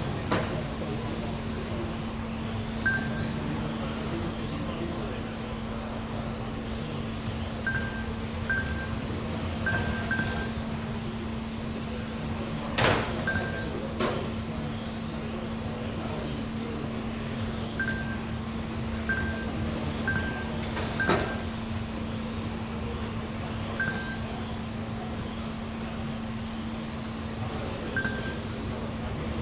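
GT12 1/12-scale electric RC cars running on a carpet track, over a steady low hum. Short high electronic beeps come every second or two as the lap-timing system registers cars crossing the line, and there are a few sharp knocks, around 13 and 21 seconds in.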